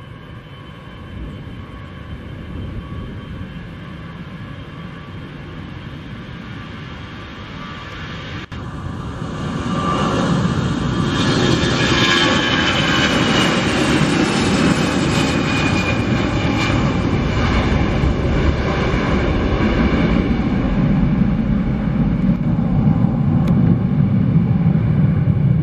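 Airbus A319's twin CFM56 jet engines at takeoff power through the takeoff roll, with several whining tones over the engine noise, growing louder as the jet accelerates. Shortly after a brief dropout it becomes much louder, a whine falls in pitch as the jet passes, and then a steady heavy rumble carries on as it lifts off and climbs away.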